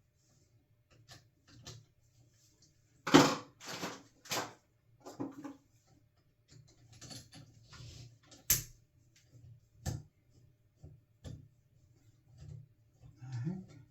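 Scattered clicks and knocks of a metal cartridge puller and hand tools being handled and fitted at a shower valve, with one loud sharp knock about three seconds in.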